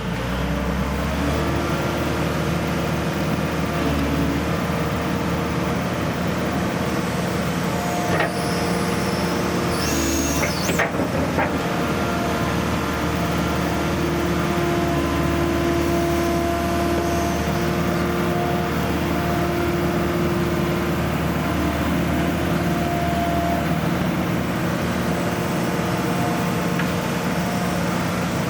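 Kobelco SK160LC excavator's diesel engine running steadily, its tone shifting a little a few times, with a couple of short clanks about a third of the way in.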